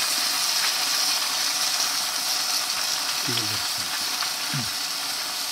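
Food sizzling in a blackened pot over an open wood fire: a steady, high frying hiss.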